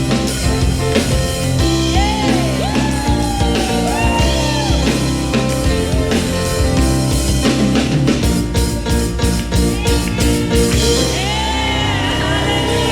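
Worship song played by a band with drum kit, a singer's wordless, gliding vocal runs over it, and a quick run of drum hits from about eight to ten seconds in.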